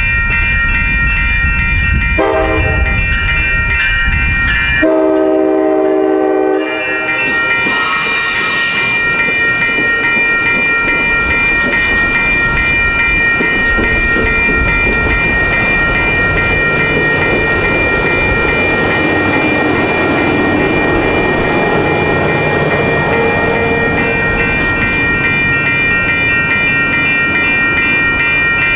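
A railroad crossing's electronic bell (a WCH Type 3) rings steadily throughout. An Amtrak Capitol Corridor passenger train sounds a long horn blast about two seconds in; its pitch drops about five seconds in, and the horn stops a couple of seconds later. The bilevel passenger cars then roll through the crossing with steady wheel and rail noise.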